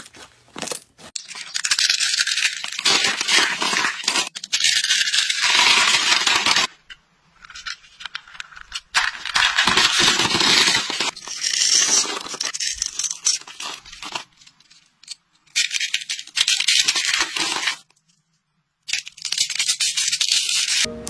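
Hands crushing and crumbling brittle, crispy rolled shapes into shards: dense crackling and crunching in several bursts of a few seconds each, with short pauses between them.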